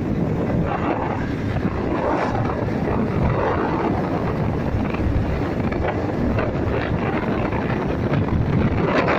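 Wind buffeting the microphone on a moving motorcycle, with the bike's engine and road noise running steadily underneath.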